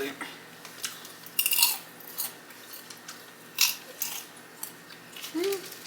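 Chewing Smartfood movie-theater-butter popcorn into a close microphone: a few light, crisp crunches at irregular intervals.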